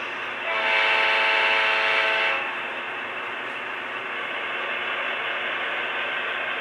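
Sound-equipped HO scale model locomotive sounding one horn blast of about two seconds, a chord of several steady tones, played through its small onboard speaker, with a steady running hiss underneath.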